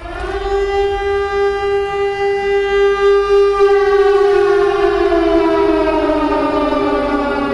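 Wailing siren sounding the alarm for an evacuation drill. It rises quickly to a steady pitch, holds for about four seconds, then slowly winds down.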